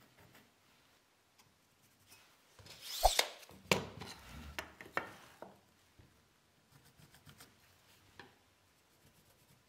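A wooden board and a hand square being handled on a hard floor: a few sharp wooden knocks and a scraping rub over about three seconds, the loudest knock about three seconds in, then faint pencil ticks while marking.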